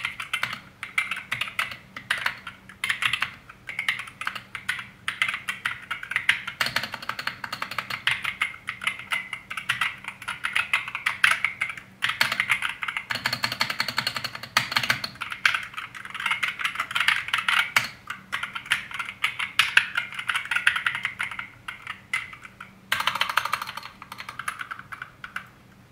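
Continuous fast typing on a TMKB GK61 60% mechanical keyboard with linear Gateron black switches and PBT keycaps, a dense clatter of keystrokes. It breaks off briefly about halfway through and again a few seconds before the end.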